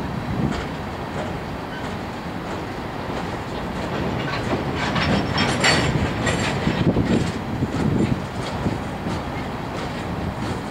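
Empty coal hopper cars rolling past: a steady rumble of wheels with a clickety-clack over the rail joints, and a louder, sharper clatter for a few seconds around the middle.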